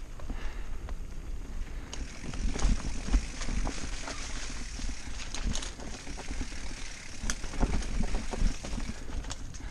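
Mountain bike riding fast down dirt singletrack: a steady low rumble of tyres rolling on dirt, with the bike rattling and clattering in quick knocks over roots and rocks, heaviest in two rough patches, about two and a half seconds in and again around eight seconds.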